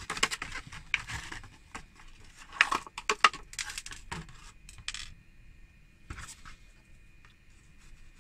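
Small cast-metal 28mm miniature figures clinking and clattering against each other as they are tipped out of a clear plastic blister pack into a hand. The clatter comes in two flurries of quick clicks, the louder one about three seconds in, followed by a few scattered clicks.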